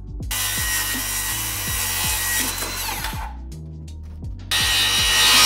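Circular saw cutting through an engineered-wood siding sheet, twice: a cut of about three seconds that ends with the blade winding down, then a second, louder cut starting near the end. Background music with a bass line runs underneath.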